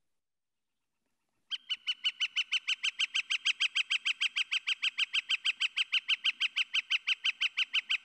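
Recorded northern flicker long call: one note repeated in a rapid, even series, about six a second, starting about a second and a half in and going on without a break.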